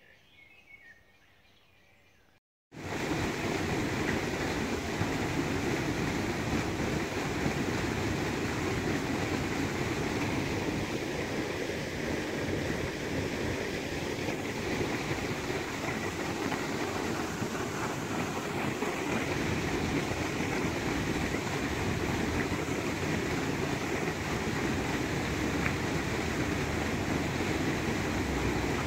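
Faint bird chirps at first, then, after an abrupt cut, a loud, steady rush of water from a shallow stream running over stones.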